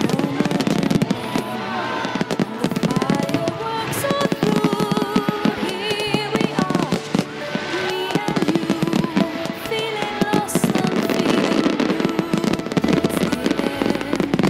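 Fireworks display: dense, continuous bangs and crackling of aerial shells and fountains, mixed with music.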